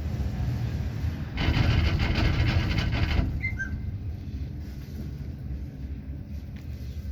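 Steady low rumble of a moving vehicle, with a louder hissing rush for about two seconds near the start and two brief high chirps just after it.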